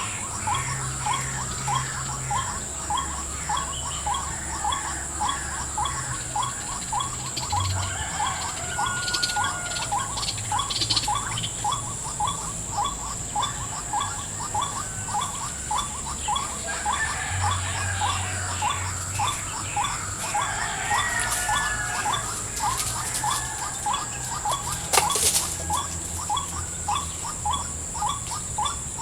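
White-breasted waterhen (ruak-ruak) calls: a short note repeated evenly, about two to three times a second, the rhythmic call used to lure the birds. A steady high-pitched whine runs beneath it.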